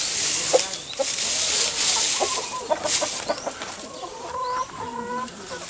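Hens clucking with short calls, one drawn out about four seconds in, over the dry rustle of straw being pushed into a wooden nest box. The rustling is loudest in the first few seconds.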